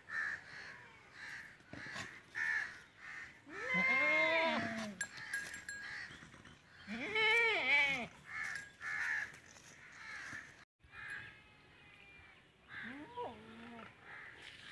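Goats bleating: two loud, wavering bleats that rise and then fall, a few seconds apart, and a shorter bleat near the end. Crows caw repeatedly in the background.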